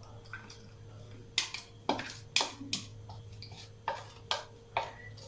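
A spoon knocking and clinking against a cooking vessel about seven times, sharp knocks with a short ring, starting a little over a second in. It is the gelatin being tapped off the spoon into the hot mirror-glaze mixture.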